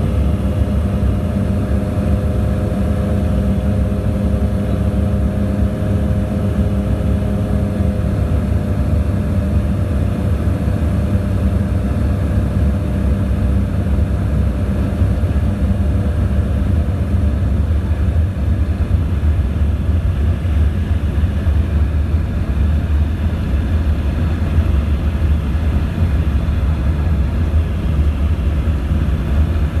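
Cabin noise of a small twin-turboprop plane in flight: a steady low drone with a propeller hum whose higher tones fade out about eight seconds in.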